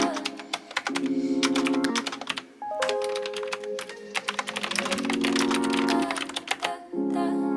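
Clicky typing on an AZIO Retro Classic typewriter-style mechanical keyboard with blue switches, in quick runs of keystrokes. Background music with soft electric-piano chords plays under it.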